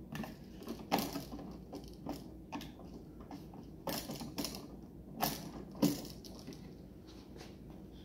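Screwdriver tightening a terminal screw on a Kasa TP-Link smart light switch, giving irregular small clicks and scrapes of metal and plastic as the switch is held and worked, the loudest click near six seconds in.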